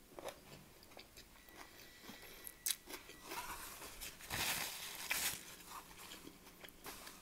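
Close-up chewing of a mouthful of beef mince and rice, with small wet mouth clicks. About four seconds in there is a brief, louder papery rustle from a tissue.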